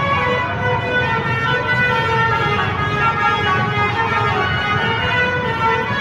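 A bus's 'telolet' multi-tone air horn playing a tune of held notes that step from pitch to pitch, loud and without a break.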